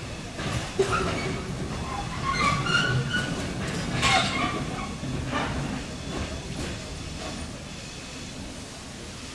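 Small narrow-gauge steam locomotive rolling slowly over curved track, its running gear and wheels giving a low rumble with a few sharp metallic clanks and a brief high wheel squeal in the first half.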